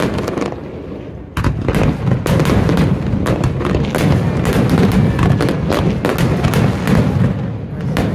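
Aerial fireworks shells bursting over water: a few separate bangs, then from about a second and a half in a dense barrage of overlapping booms.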